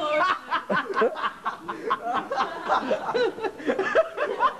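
Audience laughing and chuckling in short, uneven bursts.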